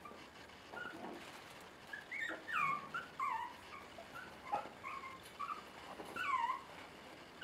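Five-week-old Bolonka Zwetna puppies whimpering and yipping during rough play: a string of short, high whines that fall in pitch, starting about two seconds in and loudest twice, near the middle and near the end.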